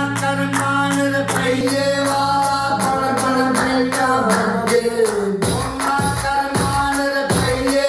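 Pop song with a sung vocal line and a steady beat, played through a JBL Charge portable Bluetooth speaker in a sound test; a heavy bass drum beat comes in about five and a half seconds in.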